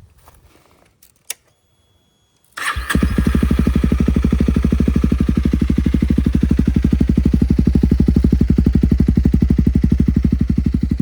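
A switch click, then about two and a half seconds in the Honda CRF300L's single-cylinder engine starts on the button, catches at once and settles into an idle with a rapid, even exhaust pulse through its repacked aftermarket eBay muffler.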